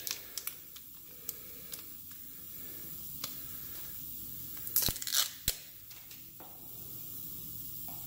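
Small handling noises from a tire plug kit being readied: faint rustling and scattered clicks, with a cluster of sharp clicks and scrapes about five seconds in.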